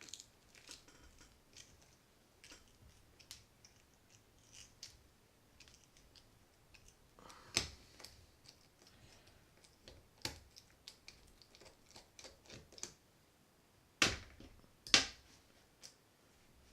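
Small screws being backed out of a Penn 260 Slammer spinning reel with a screwdriver: faint gritty scraping and ticking, with a few sharper clicks in the second half. The crunch in the threads is what the owner takes to be salt water or sand worked into the reel.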